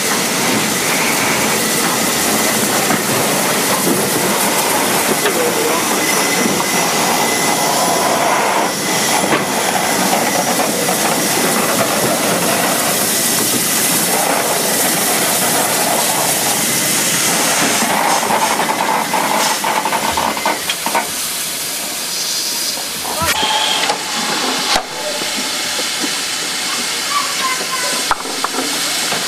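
Steam hissing from Caledonian Railway 0-6-0 goods engine No. 828 as it draws into the station and stands, steam escaping from around its cylinders. The hiss drops away after about twenty seconds, leaving a lower, steadier background with a few clicks.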